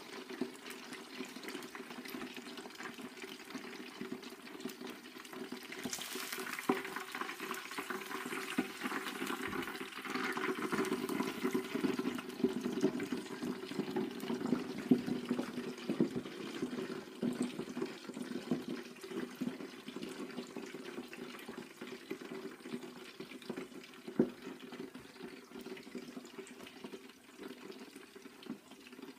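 Hot fat in an electric deep fat fryer bubbling hard and foaming up to the rim, with a steady bubbling hiss and scattered crackles. It grows louder and brighter from about six seconds in and settles again in the second half.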